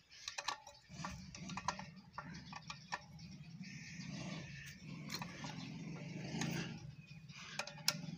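Adjustable wrench clicking and scraping against a metal pipe fitting on a water pump as the fitting is tightened, a series of irregular light clicks, over a low steady hum that starts about a second in.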